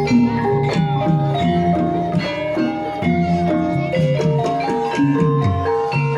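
Banyumasan gamelan music for an ebeg horse-dance: struck mallet instruments play a fast, busy melody of short ringing notes over a steady low bass.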